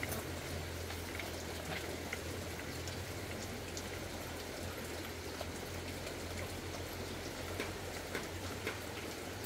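Steady patter of rain with scattered sharper drop clicks, over a low steady hum.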